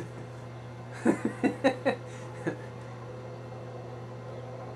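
A quick run of four or five short vocal sounds from a man about a second in, like a brief laugh, over a steady low electrical hum.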